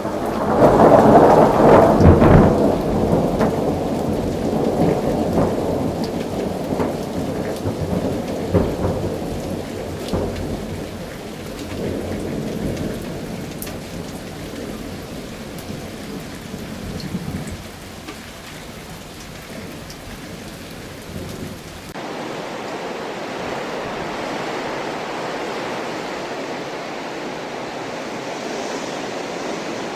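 Thunderstorm with rain: a loud thunder clap right at the start rolls on as a long rumble that fades over about fifteen seconds, over steady rain. About twenty-two seconds in it cuts to a different, steady rushing noise.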